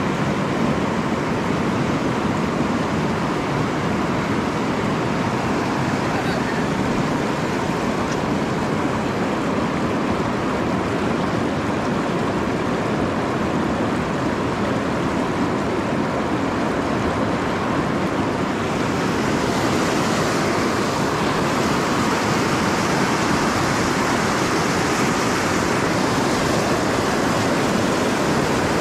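Steady rush of river water running over rocks and shallow rapids. About two-thirds of the way in it grows a little louder and hissier.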